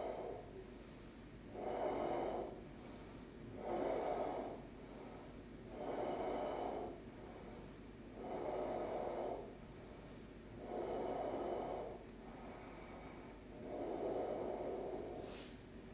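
A person breathing audibly through the throat in the slow, even ujjayi breath of ashtanga yoga practice, roughly one breath every two seconds.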